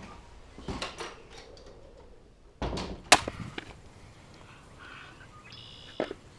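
A few separate sharp knocks and thuds, the loudest about three seconds in, then an axe striking firewood on a chopping stump near the end.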